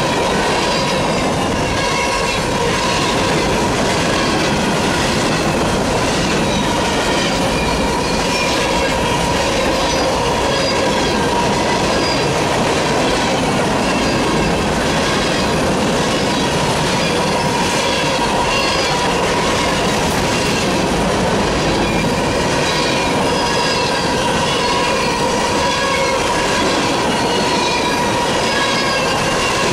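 Freight cars rolling past at steady speed: a continuous rumble and rattle of steel wheels on rail. Over it sits a steady ringing tone with flickering higher squeals that come and go every second or so, typical of wheel squeal.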